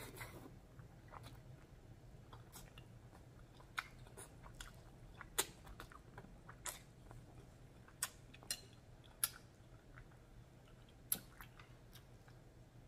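Close-miked mouth sounds of a person eating black bean sauce noodles: soft chewing with wet smacking, a dozen or so sharp clicks at irregular intervals, and a noodle slurp right at the start.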